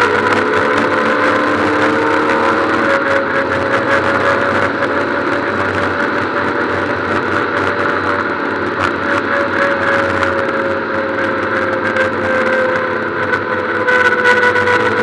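Ford Puma Cup race car's four-cylinder engine pulling hard at high revs, heard from inside the stripped, roll-caged cabin. The note climbs slowly and then eases back down in the second half.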